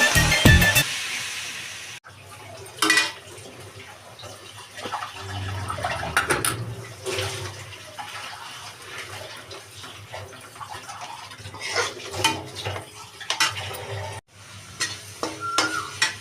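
Kitchen work: utensils and pots clinking with water sounds, after background music fades out in the first second or two.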